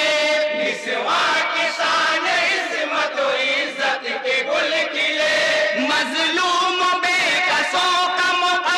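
A group of men chanting a naat (Urdu devotional poem) in chorus, with long held, wavering notes.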